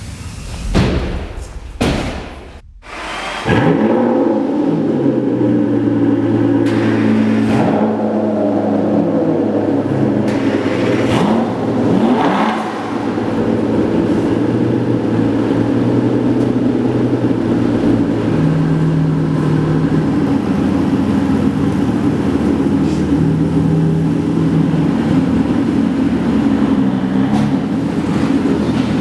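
Aston Martin V12 engine starting up: it fires about three and a half seconds in, is blipped a couple of times with rising and falling revs, then settles into a steady idle whose pitch steps down and up a few times.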